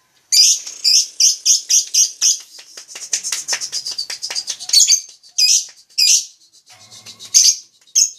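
Lovebirds chattering: sharp, high-pitched chirps a few a second, speeding up about two and a half seconds in into a fast rattling run of rapid chirps, then slowing back to separate chirps.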